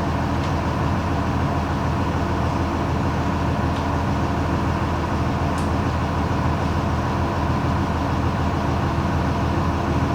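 Mercedes-Benz OM-366LA six-cylinder turbodiesel of a Busscar Urbanus S city bus (OF-1721 chassis) running at a steady pitch and level.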